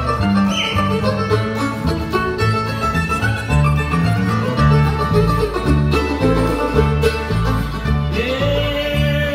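Bluegrass band playing live: fiddle, mandolin and acoustic guitar over upright bass notes that move steadily underneath.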